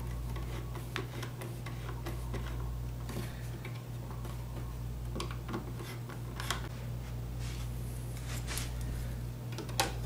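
Screwdriver turning a switch mounting screw into a metal electrical box: a string of faint, irregular small clicks and ticks from the tip, the screw and the metal strap. A few sharper clicks come near the end, as a plastic faceplate is set over the switches.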